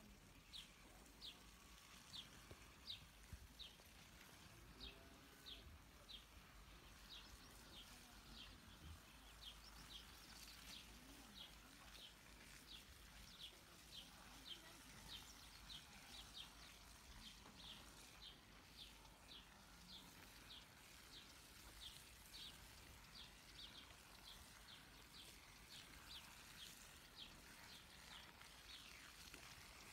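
Faint bird calling, repeating a short high chirp over and over, about twice a second.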